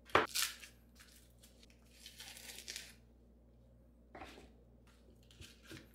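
Paper sheets being peeled off frozen burger patties, rustling and crinkling in a few short bursts, the loudest right at the start.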